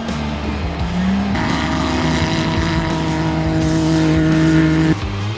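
Off-road race car engine revving up and held at high revs, a steady note that climbs slightly, then stops abruptly about a second before the end.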